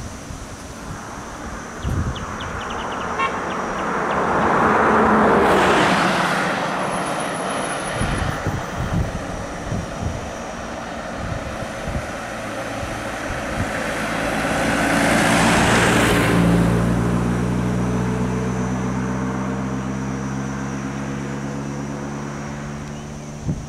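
Motor vehicles driving past on a paved road: two passes, each swelling and fading, the loudest about five seconds in and again around fifteen seconds. After the second pass, a vehicle engine hums steadily, its pitch sinking slowly.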